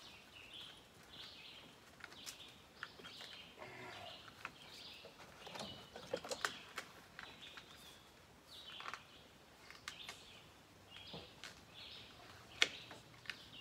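Birds chirping, with scattered rustles and clicks from a plastic sheet being handled, and one sharp click near the end.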